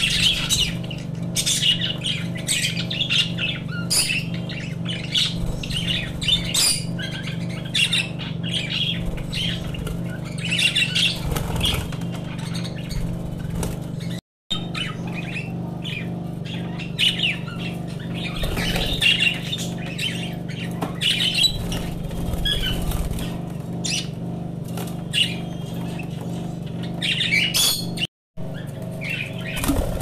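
A group of budgerigars chattering, with a constant run of short chirps and squawks and now and then a flutter of wings. The sound cuts out briefly twice.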